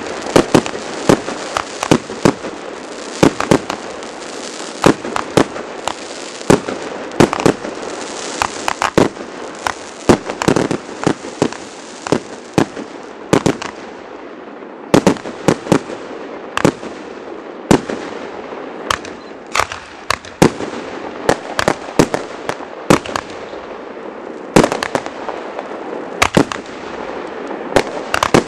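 Fireworks display: a rapid, irregular string of sharp bangs from bursting shells, often several a second, over a continuous hiss. The bangs thin out briefly about halfway through, then pick up again.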